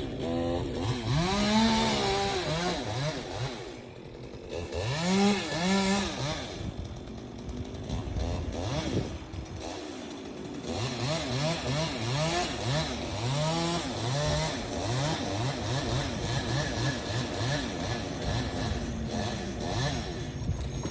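Chainsaw engine revving up and down over and over, dropping back toward idle between pulls, with a run of quick short throttle blips about halfway through.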